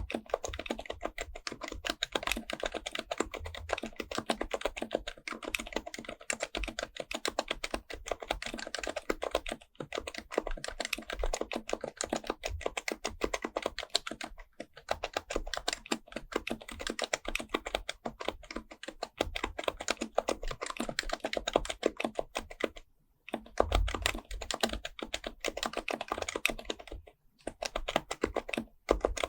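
Fast, continuous typing on an HHKB Professional Type-S keyboard with its silenced Topre capacitive key switches, with short breaks in the typing four times.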